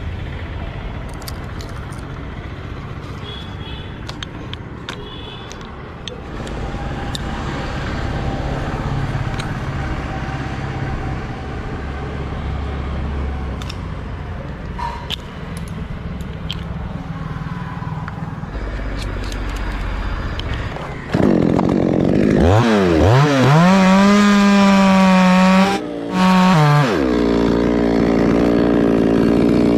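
Chainsaw: after a long stretch of low rumble and scattered knocks, the saw comes in loud about two-thirds of the way through, its pitch dipping then climbing to high revs, cutting out for a moment, revving again, and settling to a steady lower idle near the end.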